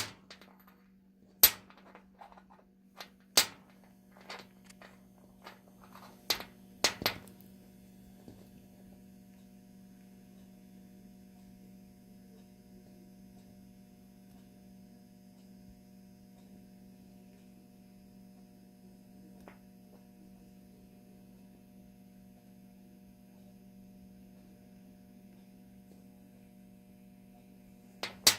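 About ten sharp clicks or taps over the first seven seconds, then only a faint steady hum.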